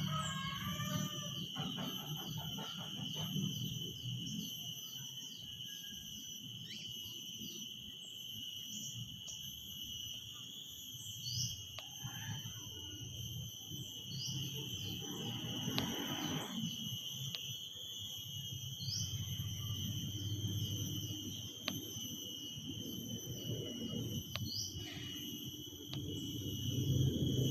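Cicadas droning in a steady, high-pitched chorus with a fine rapid pulsing, over a low rumble. Short rising chirps break in every few seconds.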